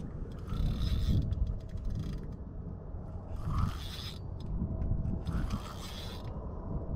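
Spinning reel being cranked in several short bursts, its gears clicking and rattling as line is wound in against a heavy, unmoving load: a catfish tangled in the line. A low rumble runs under it.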